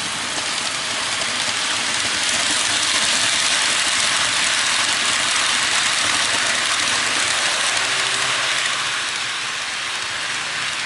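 Dubbed recording of an electric train passing through a station without stopping: a rushing noise of wheels on rails that swells over the first few seconds and slowly fades toward the end.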